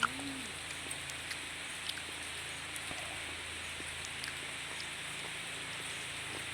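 Heavy rain falling as a steady hiss, with scattered drop ticks and one sharp click right at the start.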